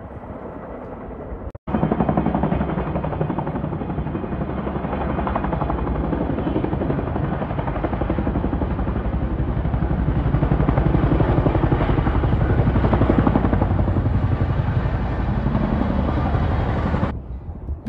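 Tandem-rotor CH-47 Chinook helicopter flying low overhead, its rotors beating in a loud, rapid, steady chop. The sound cuts in abruptly about two seconds in and cuts off shortly before the end.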